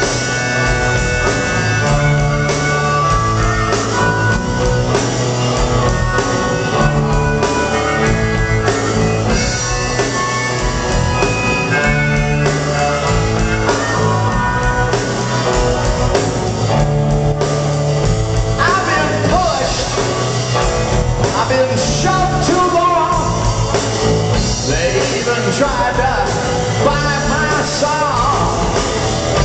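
Live rock band playing loud through the hall's PA: electric guitar, bass guitar and drum kit, with a male singer's voice over the band.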